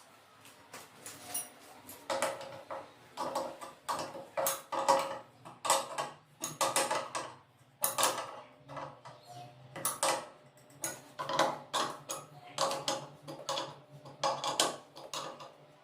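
Hand tools and fittings being worked during a plumbing installation: a run of sharp clicks and scraping strokes in irregular bursts, starting about two seconds in, over a faint low hum.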